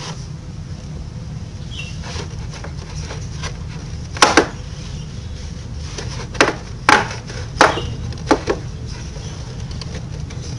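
A hand and rag wiping around the cylinder head of a Honda Supra X125 scooter-style motorcycle, knocking against its plastic bodywork and engine: six sharp knocks, a pair about four seconds in and four more over the next four seconds, over a steady low hum.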